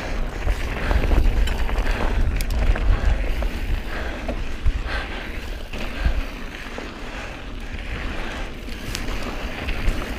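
Specialized Stumpjumper mountain bike ridden fast down a dirt singletrack: tyres running over the dirt and the bike rattling with scattered sharp clicks and knocks. A heavy, steady rumble of wind buffets the body-mounted camera's microphone throughout.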